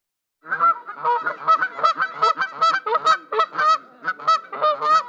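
A funny stock sound effect played back: a quick run of short, nasal honking calls, two to three a second, starting about half a second in.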